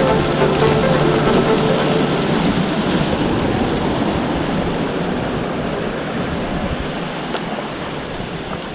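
Small waterfalls pouring off a rock face and splashing into a river: a steady rush of falling water that slowly fades.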